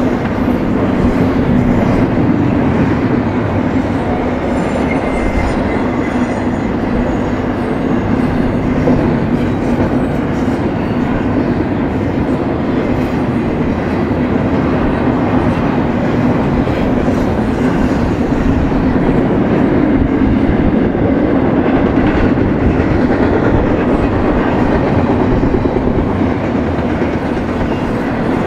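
BNSF double-stack intermodal freight cars rolling past: a steady noise of steel wheels running on the rails.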